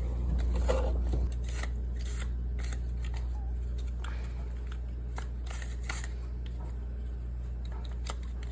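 Rags rustling and rubbing, with irregular small clicks and scrapes, as standing water is mopped out of a dishwasher's base pan. This is the water that sets off the PE error. A steady low hum runs underneath and drops a little about a second in.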